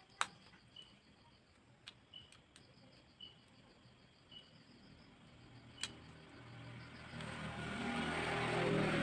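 A motor vehicle passing by: engine and road noise swell from about halfway and are loudest near the end. Before it there are a few sharp small clicks and a faint short chirp repeating about once a second.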